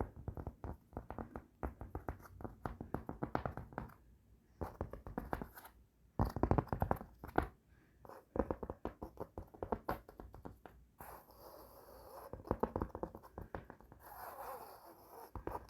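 Fingertips tapping fast on a fabric tapestry over a cupboard, in rapid, irregular runs of soft taps. About eleven seconds in, and again near the end, the tapping turns to stretches of scratching on the fabric.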